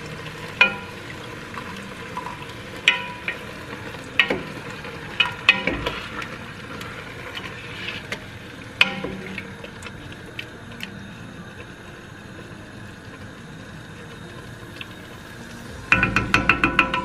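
Browned chicken sizzling in a stainless steel pot as tomato sauce is poured in from a can, with a few sharp knocks of the can against the pot spread every second or two. Near the end comes a quick run of knocks as a wooden spoon stirs against the pot.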